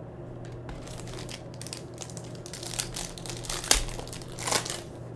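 Shiny plastic wrapper of a Panini Prizm basketball card pack crinkling and tearing as it is opened by hand, in irregular crackles with a sharp crack a little before four seconds in.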